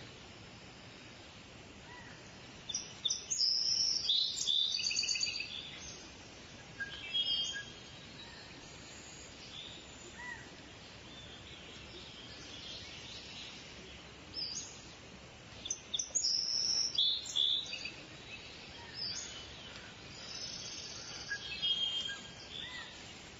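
Birds chirping: clusters of short, high-pitched chirps and quick trills over a faint steady background, loudest about three seconds in, again past the middle, and once more near the end.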